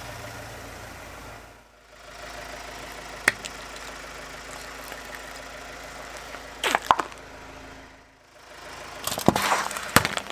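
Car engine idling steadily under a slowly rolling car tyre as it crushes small objects: a single sharp snap about three seconds in, a short crackling crunch near seven seconds, and near the end a louder run of cracks and pops as a drink can bursts and sprays foam.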